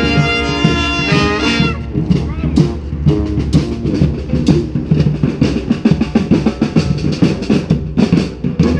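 Street brass band with horns and drums playing a rock tune: a held horn chord gives way about two seconds in to busier drumming under lower, moving horn lines.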